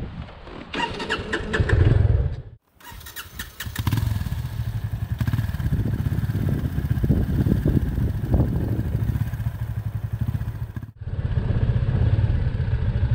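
Motorcycle engine running on the move. The sound cuts out abruptly twice, briefly, once early and once near the end.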